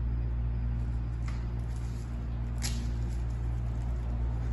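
A steady low hum from room machinery, with two brief faint rustles, about a second in and near the middle, as paper wrappers are pulled off drinking straws and the straws are put into glasses of iced tea.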